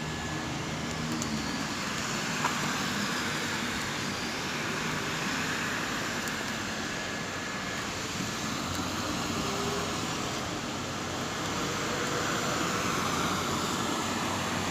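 Steady rush of flowing water: an even, unbroken hiss with no pauses.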